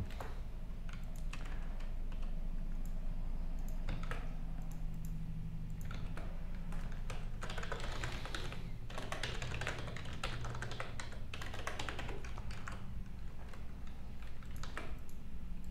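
Typing on a computer keyboard: bursts of quick keystrokes with short pauses, busiest in the middle, over a low steady hum.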